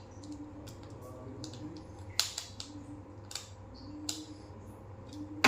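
Scattered sharp clicks and knocks at irregular intervals, the loudest about two seconds in.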